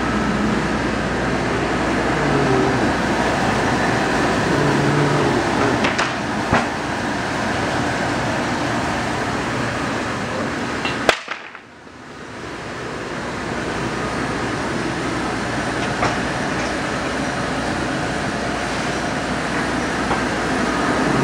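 Steady machine noise of a foam convoluter running, with a few light knocks. About halfway through a sharp knock comes, then the noise drops away suddenly and builds back over a couple of seconds.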